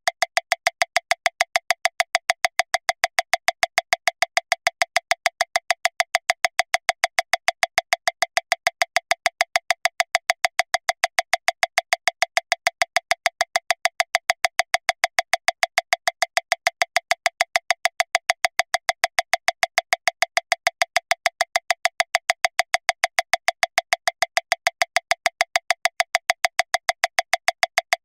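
Metronome click track at 405 beats per minute: short, sharp clicks, about seven a second (one every 0.148 s), evenly spaced and all of equal strength with no accented beat.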